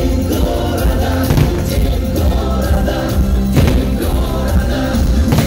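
Music with singing, loud and steady, with a few sharp hits through it, the strongest about three and a half seconds in.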